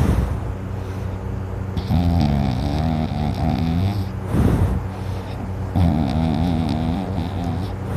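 A sleeping person snoring: two long, wavering, rattling snores about four seconds apart, each followed by a short noisy breath.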